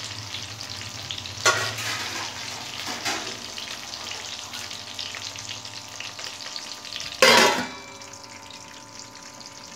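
Tomato wedges sizzling in hot oil in a stainless steel kadai, with a clink about a second and a half in. About seven seconds in, a steel lid is set on the pan with a loud clang, and the sizzle turns muffled.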